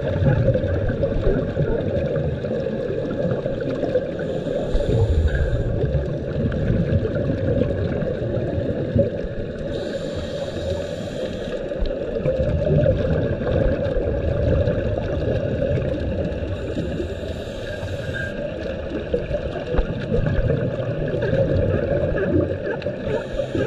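Underwater ambience: a scuba diver's regulator releases four short bursts of exhaled bubbles, roughly six seconds apart, over a constant low rush of water noise.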